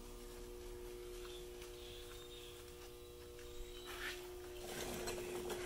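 A steady low hum of two even tones, with a brief rustling noise and a sharp click near the end.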